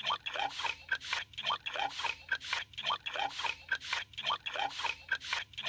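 A metal spoon beating a runny egg mixture in a clay bowl, a quick steady run of wet swishing and sloshing strokes, about three to four a second.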